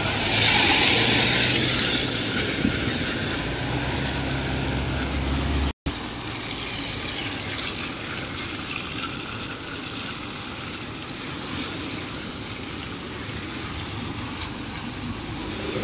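Road traffic on wet asphalt: tyres hissing on the wet road under a low engine hum, with a loud swish of a vehicle going past in the first couple of seconds. The sound drops out for an instant about six seconds in, then goes on as a steady wash of wet-road traffic noise.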